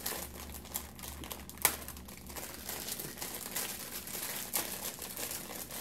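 Crinkly plastic candy wrapper being crumpled and pulled open by hand around a lollipop, in a run of crackles with one sharp snap about a second and a half in.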